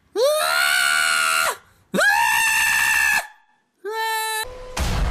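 A goat screaming: three long, loud bleats, each rising sharply at its start and then held, with short gaps between them. Near the end the sound cuts abruptly to a steady noise.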